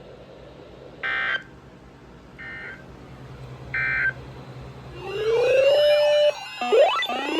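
Weather radio broadcast over a low hum and hiss: three short bursts of data tones about a second and a half apart, the SAME end-of-message code closing the previous warning. About five seconds in, a loud siren-like wail starts, rising in pitch and holding, with further rising sweeps layered over it.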